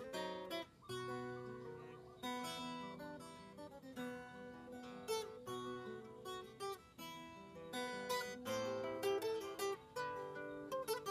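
Background music: acoustic guitar playing plucked notes and strummed chords, each chord ringing and fading before the next.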